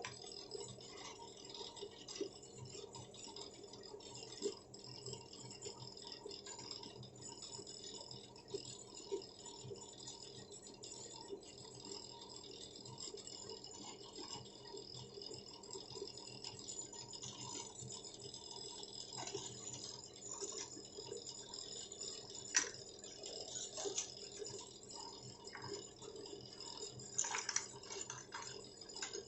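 Faint scattered small clicks and taps over a low steady hum, with a sharper click about two-thirds of the way in and a short cluster of them near the end.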